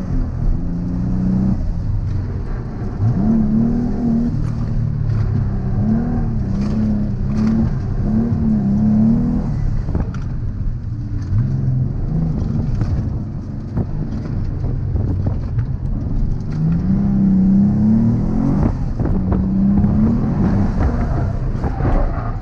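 Twin-turbo Nissan 350Z's V6 engine driven hard, its pitch climbing and falling back several times as it accelerates and lifts or shifts.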